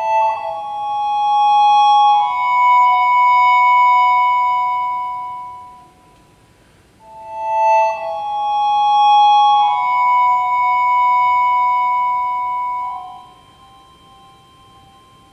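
Wind controller played through a Yamaha WT11 tone generator: synthesized, pitched notes held and overlapping in two long phrases. There is a break of about a second midway, and near the end the sound falls away to a faint lingering tone.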